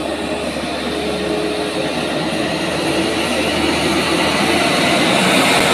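Diesel engine of a sand-loaded light truck working hard up a steep climb. It gets gradually louder as the truck approaches.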